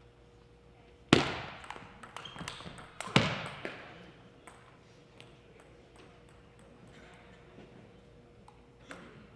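Table tennis ball and paddles in a reverberant gym: two loud sharp cracks about two seconds apart, each echoing away, with lighter ball clicks between and after as the point ends.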